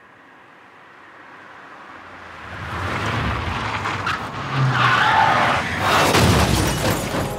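Car approaching along a road and passing at speed, its engine and tyre noise growing louder over the first three seconds, with a brief squeal of skidding tyres around the middle.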